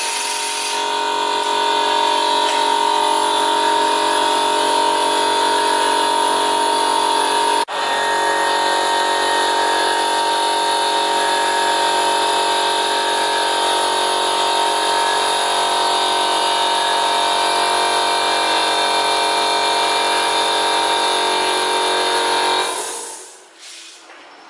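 Electric power tool running steadily at full speed for about 22 seconds, with a steady whine. There is a momentary break about eight seconds in, and it winds down near the end.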